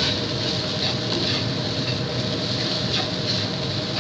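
Fried rice sizzling in a nonstick wok while a wooden spatula stirs and scrapes it in repeated strokes, over a steady low rumble.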